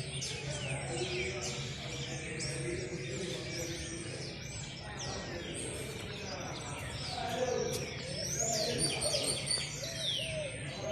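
Many small birds chirping and twittering together in quick, overlapping calls, with a faint murmur of voices underneath.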